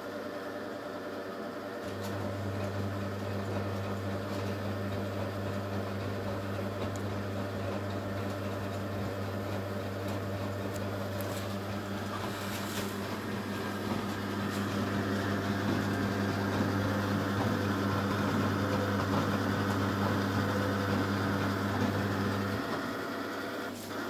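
Candy Superautomatic 98 vintage washing machine running. A steady low electrical hum starts about two seconds in and cuts off suddenly near the end, and the machine's noise grows louder about halfway through.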